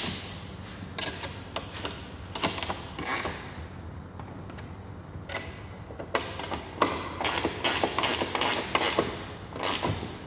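Hand ratchet wrench clicking in quick runs, with short pauses between, as the bolts of a rear wing's mounting bracket are turned; the runs come thickest in the second half.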